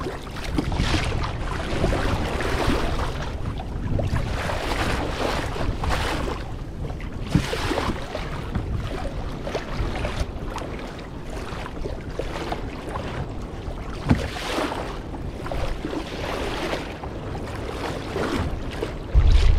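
Sea water sloshing and splashing against a kayak, swelling and fading every second or two, with wind on the microphone and a couple of sharp knocks. A sudden gust of wind noise rumbles in just before the end.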